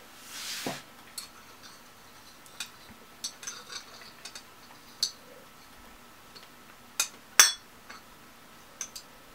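Metal chopsticks clicking and clinking against each other and the metal baking tray, in scattered light taps with two louder clinks about seven seconds in. A brief breath-like rush of noise comes near the start.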